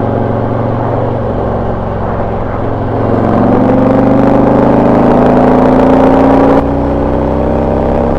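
Harley-Davidson V-twin through a Rinehart exhaust with FuelMoto tunable inserts, pulling hard under acceleration in fourth gear. From about three seconds in the exhaust note gets louder and rises steadily in pitch. Near the end the throttle is closed and the sound drops suddenly, with no decel popping.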